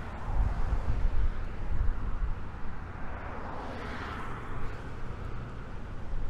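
Outdoor street ambience with traffic: a steady low rumble, and a passing vehicle that swells and fades about four seconds in.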